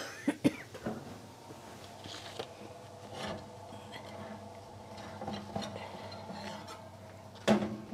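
Kitchen handling noises: a few sharp knocks of a pan and utensils just at the start, then faint scrapes and rustles over a steady appliance hum, with another knock near the end.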